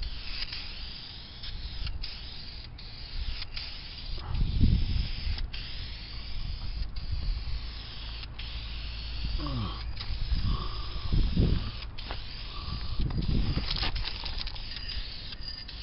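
Aerosol can of gloss black rust-stop enamel spraying onto aluminium pontoons: a steady hiss broken by many short pauses between passes. Low thumps and rumbles of handling come and go under it.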